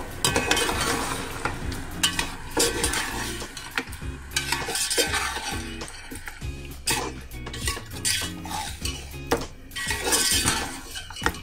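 A perforated steel skimmer spoon scraping and clinking against the inside of a metal pot as mutton and whole spices are stirred and fried, with sizzling in the pot. The scraping comes in repeated strokes, loudest near the start, about halfway and near the end.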